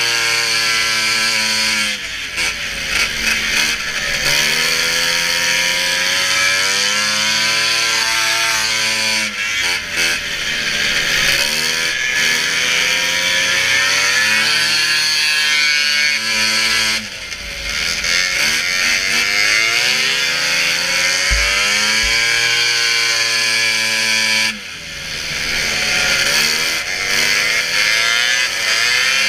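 Racing snowmobile's two-stroke engine at high revs over a steady hiss. Its pitch climbs through long pulls and drops sharply off the throttle about two, nine, seventeen and twenty-four seconds in.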